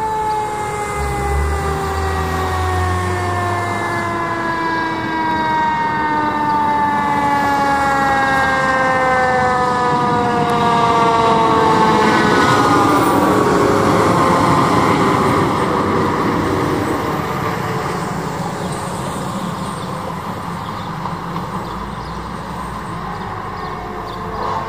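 Fire engine siren sounding one long wail whose pitch falls slowly and steadily for about the first half, as the truck approaches. Then the truck's engine and road noise are loudest as it passes close, and fade as it drives away.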